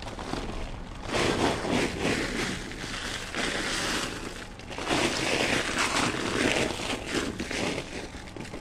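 Homemade compost tipped from a bucket onto a layer of cardboard, pouring and rustling with a crackle of crumbs hitting the cardboard. It comes in two long pours, one starting about a second in and another around five seconds.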